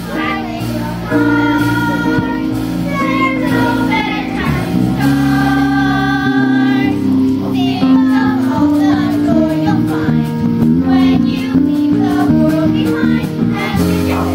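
A cast of children singing together over instrumental accompaniment in a stage musical number.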